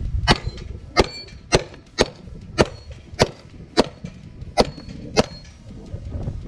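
Semi-automatic pistol fired nine times at a steady pace, about one shot every half second or so, with quieter handling noise after the last shot.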